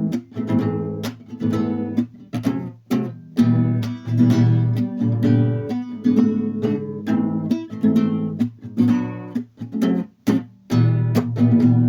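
Acoustic guitar strummed in a steady rhythm on barre chords, with short muted chops between strokes.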